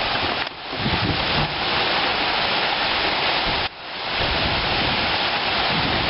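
Heavy rain and strong storm wind making a steady, loud rushing noise on the microphone. It drops away abruptly twice and swells back up within about a second.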